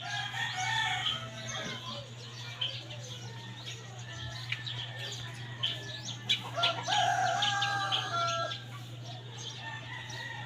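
Birds calling, with two longer gliding calls, one just after the start and one about seven seconds in, and shorter chirps between, over a steady low hum.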